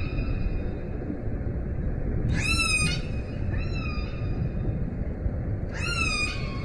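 Killer whale calls recorded underwater: high, pitched calls, each gliding up and then holding, coming about every second and a half over a steady low rush of water noise.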